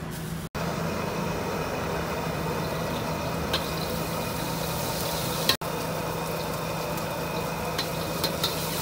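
High-output gas wok burner running at full flame with a steady rushing noise and low hum, while a metal wok ladle clinks sharply against the carbon-steel wok a few times, mostly near the end.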